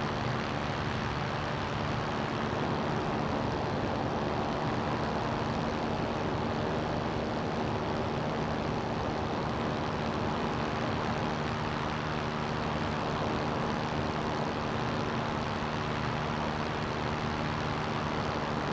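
CGS Hawk ultralight's engine and propeller running at steady power, an even drone that holds one pitch, under a thick rush of wind noise.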